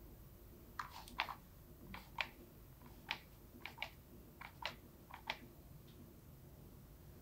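About a dozen light taps, mostly in quick pairs, from a small handled cup of cocoa powder being tapped to dust cocoa over chocolate truffles.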